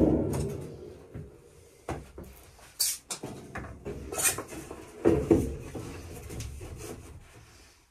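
Thin stainless steel sheet being handled and flexed, wobbling with a short metallic ring at the start and again about five seconds in, between lighter knocks and clicks.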